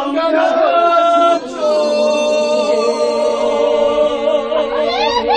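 A group of men and women singing a Korean folk song together in long held notes, several voices sounding at once, with a short break about a second and a half in. A short rising call comes near the end.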